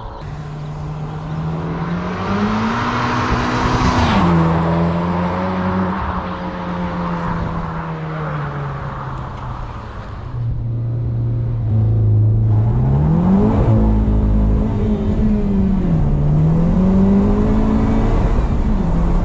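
Honda Civic Type R (FK8) 2.0-litre turbocharged four-cylinder on its stock intake, breathing through an HKS cat-back exhaust, accelerating hard. The engine note climbs and drops several times through revs and shifts, and gets louder about ten seconds in.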